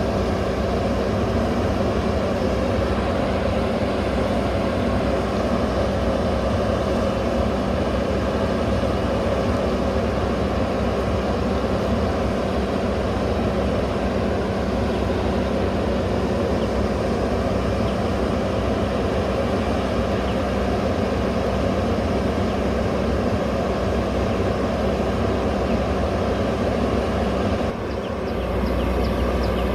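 JCB backhoe loader's diesel engine running steadily, with a short dip and a change in tone near the end.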